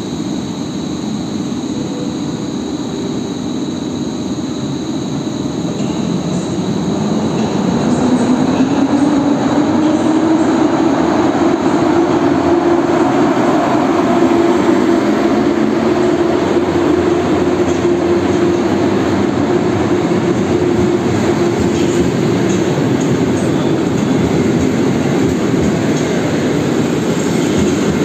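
Polish EP07 electric locomotive pulling a train of passenger coaches away from the platform. About seven seconds in it grows louder, with a hum that rises in pitch as it picks up speed and then holds steady while the loco and coaches roll past.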